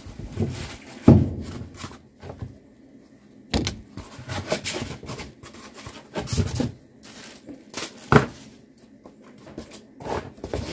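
Foam packing inserts rubbing and scraping against a cardboard box as they are lifted out by hand, with several irregular knocks and bumps, the sharpest about a second in and about eight seconds in.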